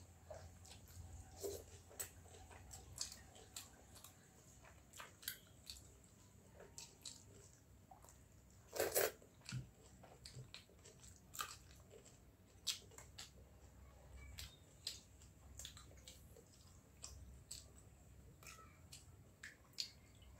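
A person chewing and eating by hand close to the microphone: a scattered run of short wet mouth clicks and smacks, with a louder bite about nine seconds in.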